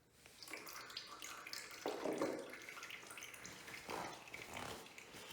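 Engine oil trickling and dripping out of a Suzuki DR-Z400's opened oil-filter housing, in uneven swells.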